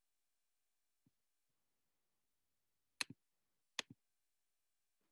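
Near silence, broken twice by a short, sharp click: once about three seconds in and again just under a second later, each with a quick softer knock right after.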